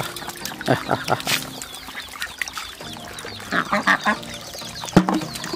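A flock of white Pekin ducks quacking in short, scattered calls, with a quick run of quacks a little past halfway. A single sharp click near the end is the loudest moment.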